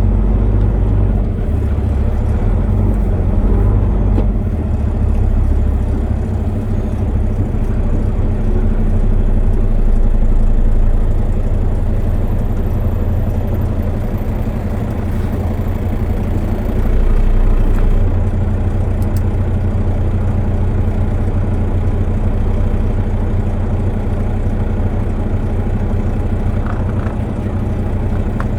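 Large engine running steadily with a deep low hum, swelling slightly in loudness a few times.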